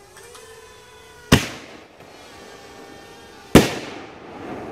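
Excalibur consumer artillery shell fired from a mortar tube on a drone: a sharp bang of the lift charge about a second in, then a louder bang about two seconds later as the shell breaks high overhead, with a rumbling trail after it. A faint steady hum of the hovering drone lies underneath before the first bang.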